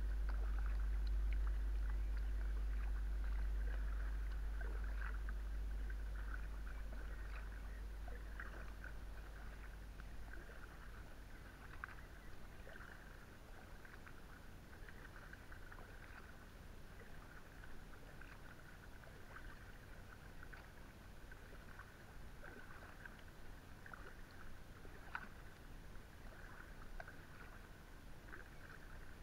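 Inflatable kayak being paddled on calm water: quiet paddle strokes and drips over a faint, steady high chirping. A low rumble fades out over the first several seconds.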